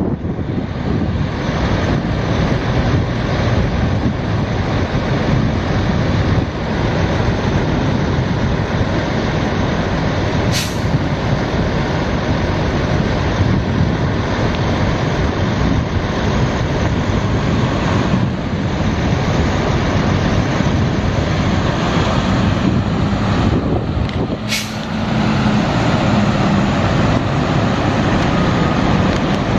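Freightliner Cascadia semi truck's Detroit Diesel DD15 six-cylinder diesel running, a steady loud drone. Two brief sharp clicks come about ten seconds in and again some fourteen seconds later, the second with a short dip in the engine sound.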